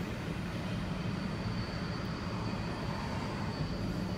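A freight train of intermodal well cars rolling past a grade crossing: a steady rumble of wheels on rail, heard from inside a car.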